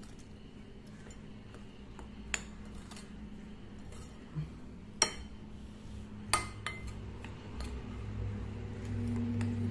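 Metal spoon stirring a crumbly flour mixture in a glass bowl, with a few sharp clinks of the spoon against the glass, the loudest about five seconds in. A low hum grows louder near the end.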